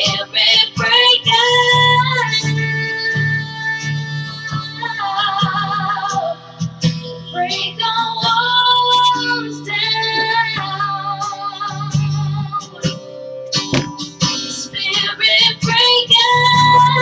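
Worship song with a female singing voice over guitar and a steady bass line, in an instrumental stretch between sung lines.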